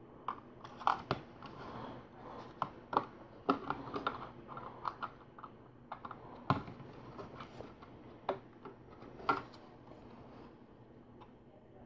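Plastic LEGO pieces clicking and tapping as they are handled and pressed onto a model, an irregular scatter of small clicks, the sharpest about six and a half and nine seconds in.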